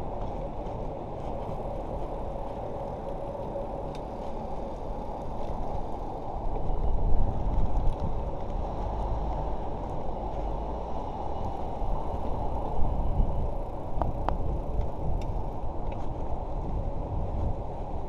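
Riding noise from a bicycle on city tarmac: a steady low rumble of wind over the microphone and tyres on the road, swelling louder twice, about a third and two thirds of the way through.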